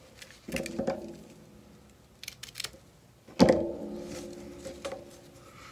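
Hands handling a kraft-paper seed packet and burlap tape on a cutting mat: rustling and light taps, with a knock about half a second in and a louder one about three and a half seconds in, each followed by a low tone that fades over a second or two.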